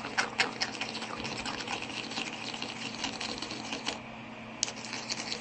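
Homemade shampoo slime being stirred quickly in a container: a fast, dense run of small sticky clicks and taps, which pauses briefly about four seconds in and then starts again.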